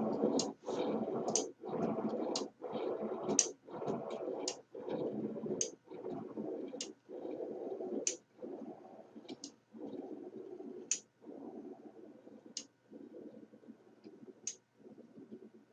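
Small wheeled cart rolling back and forth and bouncing off springs: a sharp click at each rebound, with a rolling rumble in between. The bounces come at slower and slower intervals and the rolling grows quieter as the cart loses energy.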